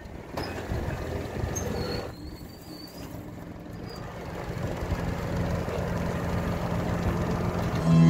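Wind rumbling on the microphone aboard a sailing yacht under way, with a low steady tone swelling in over the last few seconds.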